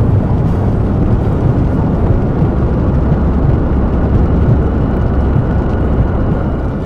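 A loud, steady low rumble: dense noise with no clear pitch, heaviest in the bass.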